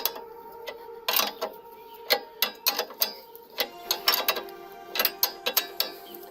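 17 mm ratchet wrench clicking in short irregular runs as the stabilizer link bolt is loosened, over steady background music.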